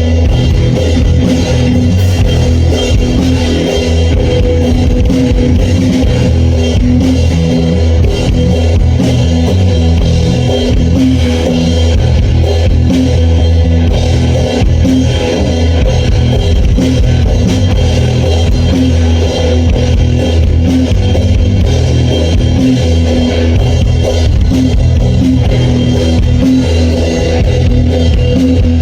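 A rock band playing loud and steady: electric guitar over a drum kit, the full band running through a song as a sound check.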